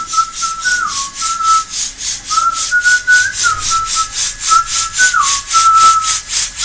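Background music: a whistled tune, short held notes stepping up and down, over an even shaker-like hiss rhythm of about four to five beats a second.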